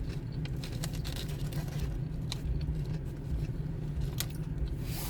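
A steady low hum, with a few small clicks and taps scattered over it.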